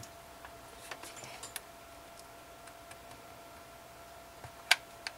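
Hot glue gun and ribbon being handled on a tabletop: scattered faint clicks and taps, with one sharp click near the end and a smaller one just after it.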